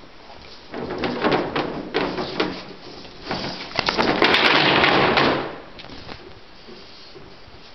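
Handling noise as a dog pushes its face up against the camera: scattered clicks and scuffs, then a loud rubbing rush for about a second and a half midway that cuts off suddenly.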